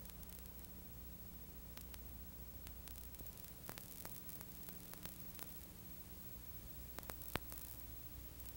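Faint steady hiss and low hum with scattered clicks and pops, one sharper pop near the end: the background noise of an old 16mm film soundtrack.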